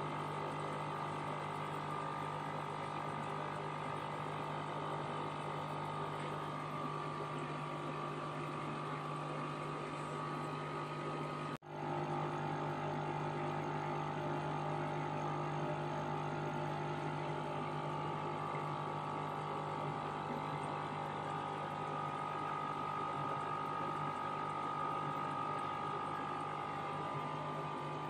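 Steady hum of running aquarium equipment, a constant low drone with a higher steady whine over a light hiss.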